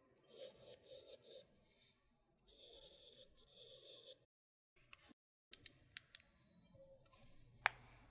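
Samsung Galaxy S22 Ultra's S Pen stylus scribbling fast across the phone's glass screen, scratchy back-and-forth strokes in two runs during the first four seconds. After a short dead gap come a few light clicks and one sharper click near the end.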